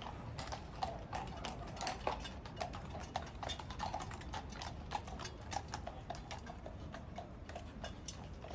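Horses' hooves clip-clopping on a hard road surface, an irregular run of sharp clicks with more than one horse walking.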